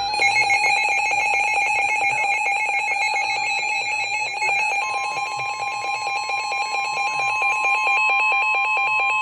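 Emergency alert tones: a rapidly pulsing electronic alarm made of several high steady tones, joined about five seconds in by a steady single tone.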